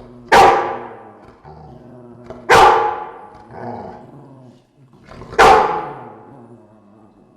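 Dogs growling low and steadily, broken by three loud, sharp barks about two and a half seconds apart. This is an angry warning display.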